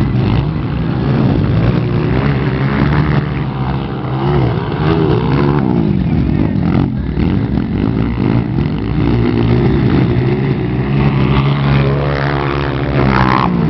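Motocross bikes' engines revving, their pitch rising and falling as the riders accelerate and shift, continuous and loud throughout.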